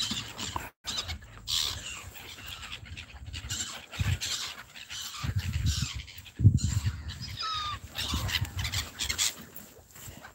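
A flock of gulls calling, short high cries with a falling call near the end. Wind buffets the microphone in gusts through the middle.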